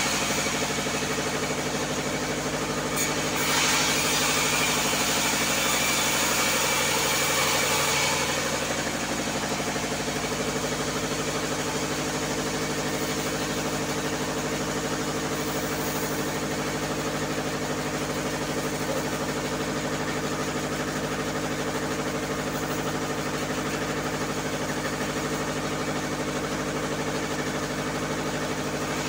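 Engine-driven vertical band saw running steadily, its blade cutting through a wooden board with a loud hiss for the first eight seconds or so, then running free without load.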